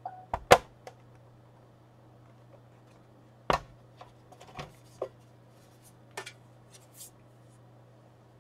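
Scattered sharp clicks and taps, about six over several seconds with the loudest about half a second in, as the aluminium bottom case of a 2011 MacBook Pro is worked loose and lifted off. A faint steady hum runs underneath.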